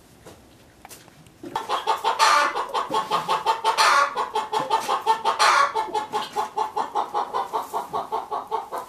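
A sow and her newborn piglets making a fast, rhythmic run of grunts, several a second, starting about a second and a half in. Louder squeal-like cries break through about two, four and five and a half seconds in.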